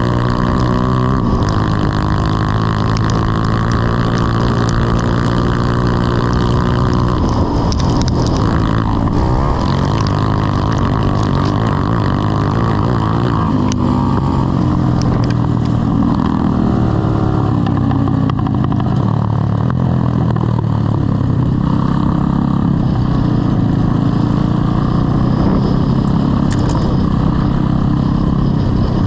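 Grass kart engine running hard through a race, its pitch rising and falling again and again as it speeds up and backs off.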